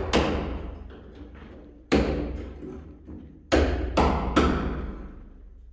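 Hammer striking a chisel against a masonry block wall: five sharp blows, one at the start, one about two seconds in, then three in quick succession, each echoing in the bare room.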